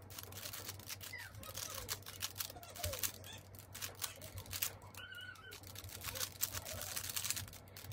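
Plastic 3x3 puzzle cube without magnets being turned quickly in a speed solve: rapid, irregular clicking and clacking of the layers as they are flicked round.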